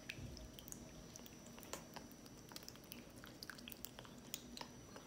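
Macaws drinking from a stainless steel bowl: faint, irregular clicks and taps of their beaks dipping into the water and touching the bowl.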